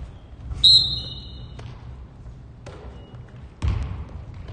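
Referee's whistle blown once, a high-pitched blast about a second long. Near the end, a basketball bounces on the gym floor with a dull thud.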